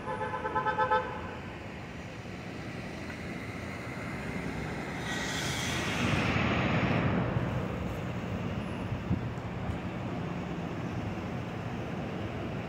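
A subway train horn sounds as a quick run of short toots in the first second. Then an R142 train rolls past on the elevated steel structure, its rumble swelling to loudest about six to seven seconds in, with a brief high hiss just before.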